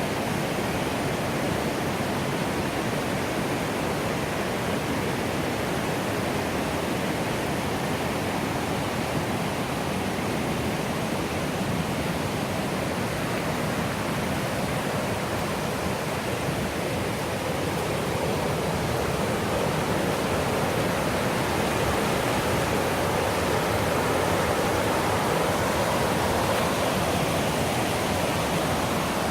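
The Millstone River's water rushing steadily, getting a little louder past the middle.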